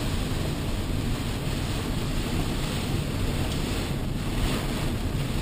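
Steady rushing noise inside a car driving through a severe storm near a tornado: storm wind and road noise against the car.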